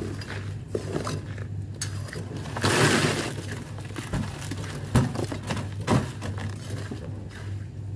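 Wet concrete with gravel sliding out of a tipped wheelbarrow into wooden formwork: a rushing, gritty pour about three seconds in, followed by two sharp knocks about a second apart as the barrow is emptied.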